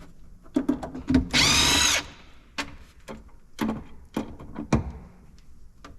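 A cordless drill-driver runs in one short whirr about a second and a half in, amid scattered clicks and knocks from parts being worked loose.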